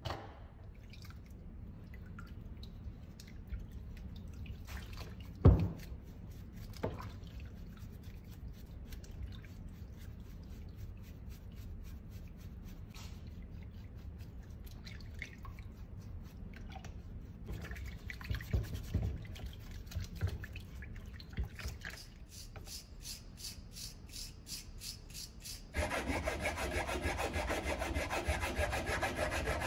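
Rusty drill parts being handled and knocked, then scrubbed with a small brush in soapy water. Near the end comes a louder run of quick, even rasping strokes, like a file working metal held in a vise.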